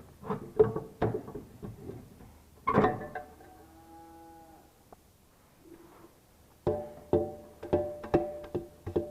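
Repeated sharp knocks and clanks from the tractor's air filter and its housing being handled, the later strikes ringing briefly with a metallic tone. About three seconds in, a loud knock is followed by a steady pitched tone lasting about a second and a half.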